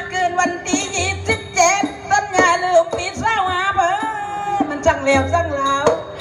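Nora (Manora) singer chanting a sung verse through a PA microphone, the voice wavering and sliding between long held notes. Behind it the ensemble keeps up light, regular percussion clinks over a steady held tone.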